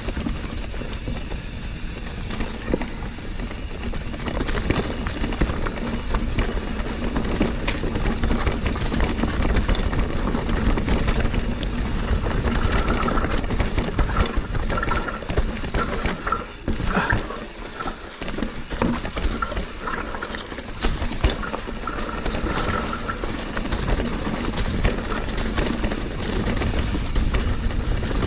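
Mountain bike moving over a dirt and rock trail: a steady rush of tyre noise with frequent small rattles and clicks from the bike, and wind rumbling on the microphone.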